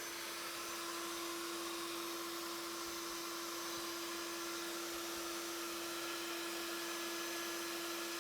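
Handheld wood router's electric motor running steadily at full speed, a constant whine over a high hiss, while the bit spins without heavy cutting.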